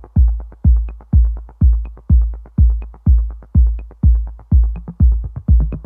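Electronic dance music with a steady deep kick drum about twice a second and light ticks between the beats.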